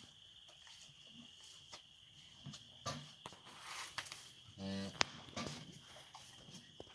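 A cow gives one short, low call a little under five seconds in, over a steady high-pitched whine and scattered soft knocks and rustling.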